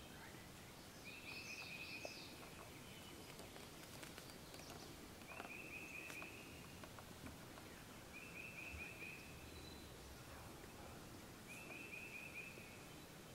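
Faint woodland ambience with a small songbird singing a short, even trill at one pitch, four times about every three seconds. Another bird gives a few higher chirps in the first two seconds.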